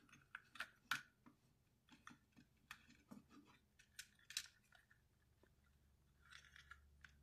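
Faint, scattered clicks and light rubbing of a transforming robot toy's parts being folded and fitted into place by hand, with a soft rustle near the end.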